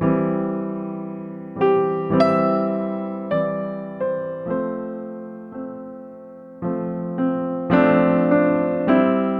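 Background music: slow, gentle piano chords, each struck and left to ring and fade before the next, about one to two seconds apart.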